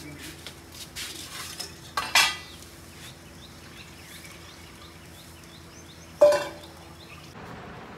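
Metal kitchen utensils being handled: two clanks, one about two seconds in and a louder one about six seconds in, each ringing briefly.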